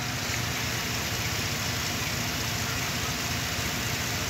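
2017 Chevrolet Silverado engine idling steadily with the hood up, just started after its thermostat and engine coolant temperature sensor were replaced to cure a P0128 code.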